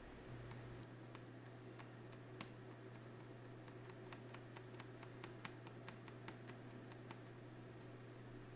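Faint, irregular clicks, about two to three a second, of a fine needle picking hardened UV solder mask off the pads of a bare NAND chip, over a steady low hum.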